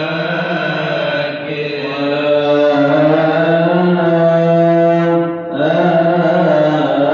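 Coptic liturgical chant: a long, slow melismatic sung line of held notes, with one short pause for breath about five and a half seconds in.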